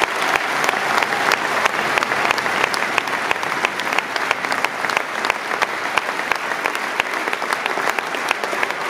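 Stadium crowd applauding steadily, with many individual hand claps standing out.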